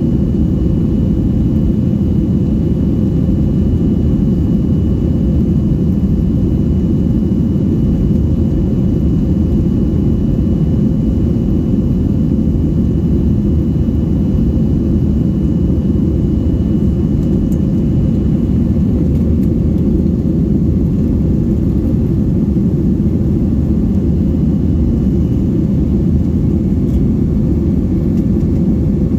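Steady low drone inside an airliner cabin as it climbs: jet engines and rushing air, with no change in level. A faint thin high whine runs under it and stops about two-thirds of the way through.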